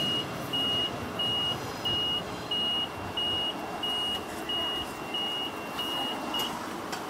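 Level crossing warning bell chiming steadily, about every 0.6 seconds, over the fading run of a departing electric train. The bell stops shortly before the end.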